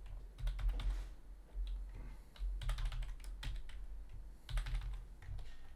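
Typing on a computer keyboard: several quick runs of keystrokes with short pauses between them, over a low steady hum.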